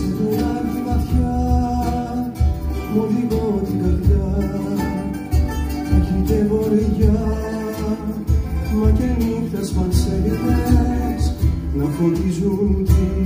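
Live Greek acoustic band playing: a man singing over strummed and plucked guitars and long-necked lutes, with a cajon keeping a steady beat.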